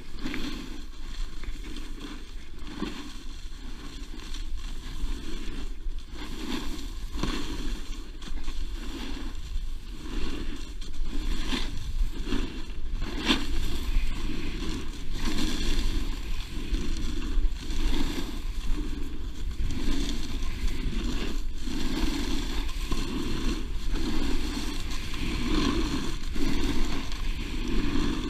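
Snowboard sliding and scraping over packed snow on a downhill run, with wind rumbling on the action camera's microphone. The scraping swells and fades about once a second, with a few sharp clicks near the middle.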